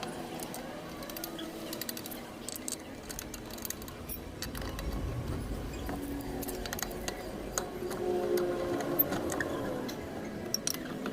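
Scattered metallic clicks and clinks of wheel bolts and tools as a car's rear wheel is refitted and the bolts are run in lightly.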